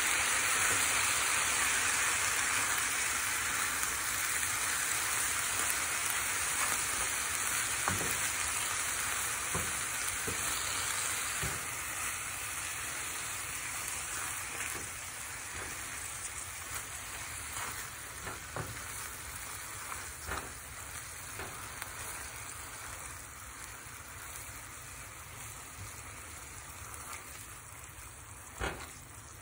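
Shredded chicken in chipotle sauce sizzling in a pan as it is stirred with a spoon, with scattered clicks of the spoon against the pan. The sizzle slowly dies down.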